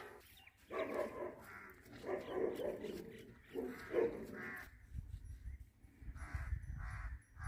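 Animal calls: a run of short, pitched calls about a second in, then three more near the end, over a low rumble.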